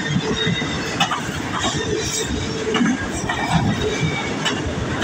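CN freight train rolling past, the steady rumble of its cars broken by irregular sharp clacks from the wheels on the track.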